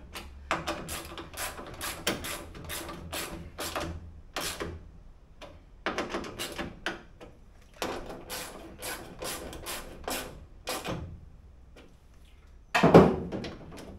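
Irregular metallic clicks, taps and rattles from hands and a small tool working the lock linkage inside a bare steel Toyota Corolla KE20 car door, with one loud clunk near the end.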